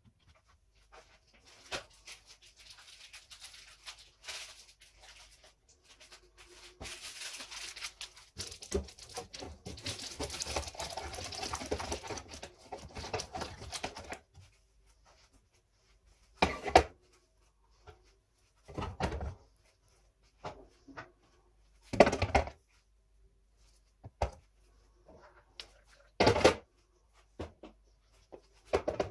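Kitchen items being handled while a refrigerator is sorted: about twelve seconds of crinkly rustling, as of packaging, then four separate knocks as things are set down.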